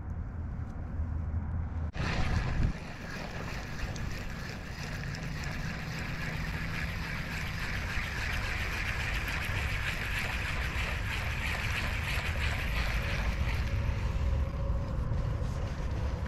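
Wind rushing over the microphone: a steady, even noise that begins with a click about two seconds in and swells a little in the middle before easing.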